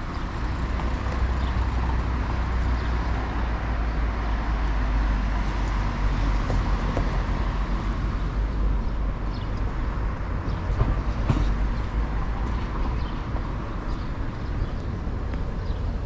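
Steady rumble of road traffic in a town street, with a couple of brief knocks about two-thirds of the way through.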